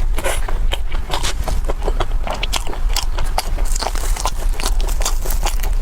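Close-miked eating: a person biting and chewing crunchy food, a dense run of sharp crunches and crackles several times a second.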